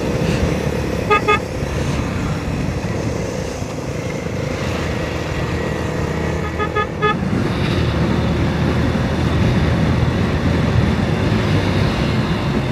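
Motorcycle riding along a highway, with steady engine, wind and road noise. A horn gives two short toots about a second in and a quick run of toots around six to seven seconds in.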